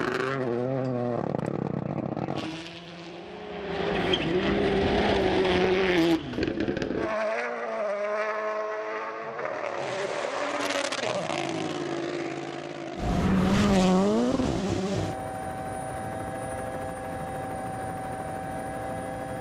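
Rally cars at full effort, engines revving up and dropping at each gear change, across several separate passes that switch abruptly from one to the next. Over the last few seconds there is a steady, unchanging high tone instead.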